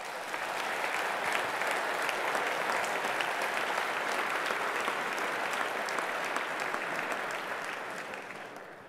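Large audience applauding, building up over the first second, holding steady, then dying away near the end.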